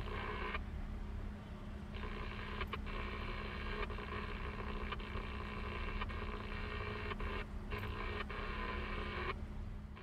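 Inside a moving taxi: the two-way dispatch radio hisses with static and no voice. The hiss cuts in sharply for half a second at the start, then again from about two seconds in until near the end, over the low rumble of the cab's engine and road noise and a steady hum.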